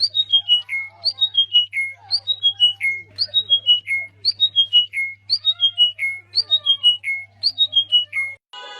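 A bird singing the same phrase over and over, about once a second: a quick run of five or six clear, whistled notes stepping down in pitch. Fainter, lower gliding calls sound underneath, and music starts just before the end.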